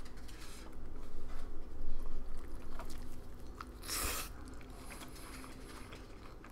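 A bite into a burrito, close to the microphone, about four seconds in, followed by quiet chewing. Before it, soft scattered crackles as the burrito is handled.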